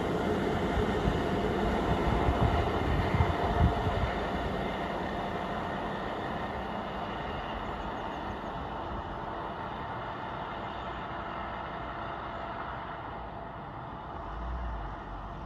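PKP WN15 rail vehicle running on the track, with a few low knocks about two to four seconds in, then its rumble steadily fading as it moves away.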